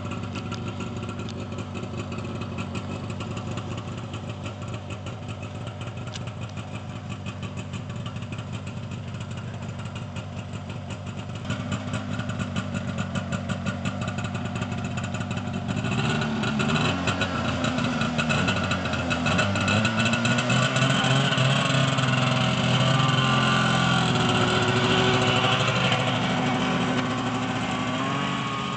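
1989 Arctic Cat Jag 340 snowmobile's two-stroke twin idling steadily as it warms up after its first start of the season. From about halfway through, the engine speed rises and falls as it is revved and ridden off, then eases near the end.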